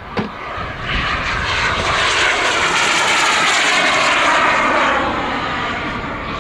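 Turbine-powered radio-controlled model jet flying past, its engine noise swelling over a few seconds and then easing off. A short click sounds right at the start.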